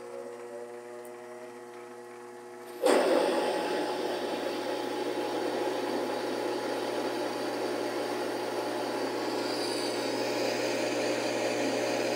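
Benchtop lathe motor whining steadily. About three seconds in, a large 29 mm drill bites into steel and a loud, continuous grinding cut sets in. The cut loads the small lathe's motor too heavily.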